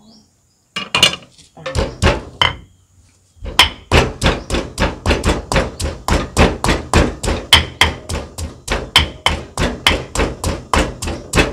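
Stone pestle pounding green chilies and salt in a stone mortar for curry paste: a few scattered strikes, then steady pounding about three times a second.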